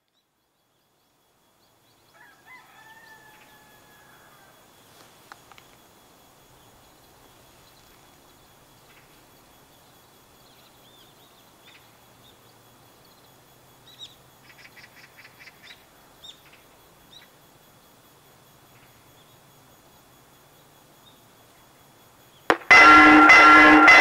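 A rooster crows once in the distance over faint rural background. Near the end the Korean railway level-crossing warning bell starts suddenly and rings loudly in quick, even repeats, signalling an approaching train.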